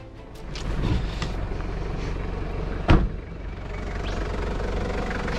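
Four-wheel drive's engine idling steadily while its door is opened and the driver climbs out, with one sharp, loud thud about three seconds in.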